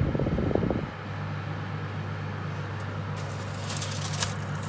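Oven's convection fan running with a steady low hum while disposable aluminium foil trays are handled on a foil-lined rack: a clatter in the first second, then crinkling, scraping foil about three to four seconds in as a tray is pushed into place.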